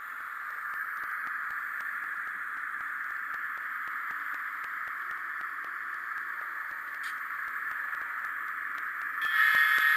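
On30 model train running along the track, heard close up from a camera riding on it: a steady hiss. Near the end it grows louder, with a few steady tones sounding over it.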